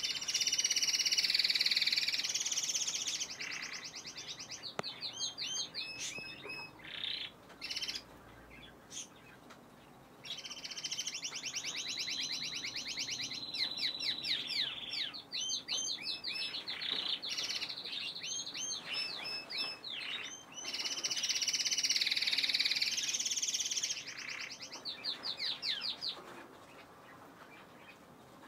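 Green Timbrado canary singing: long runs of fast trills and rapidly repeated notes, in three main bouts, with shorter separate chirps in the pauses between them.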